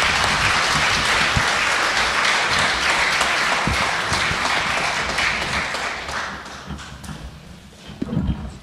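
Audience applauding in a hall at the close of a lecture, steady at first, then thinning out and dying away over the last couple of seconds.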